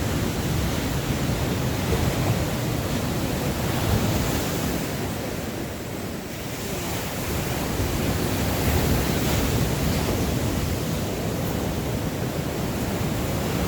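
Surf breaking and washing on the beach, with wind buffeting the microphone. It swells and dips, quietest about six seconds in.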